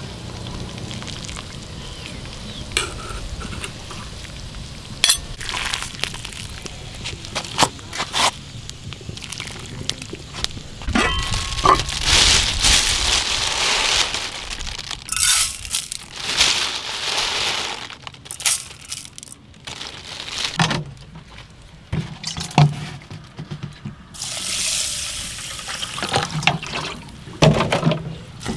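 Aluminium cooking pot being handled and filled: metal clinks against the pot and lid, and several rushing stretches as uncooked rice and then water are poured in.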